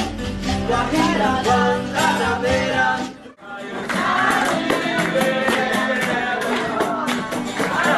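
Live acoustic guitar and singing. The sound cuts out for a moment a little past three seconds in, then another stretch of music with singing and a quick, steady beat takes over.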